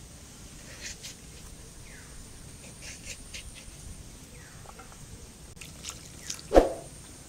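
Light scrapes and clicks of a bonti blade peeling a potato, then near the end a brief loud splash of water poured into a steel bowl of cut potato pieces.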